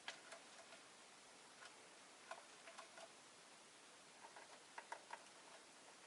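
Rosy-faced lovebird making faint, short clicks and ticks in small irregular clusters over a low steady hiss.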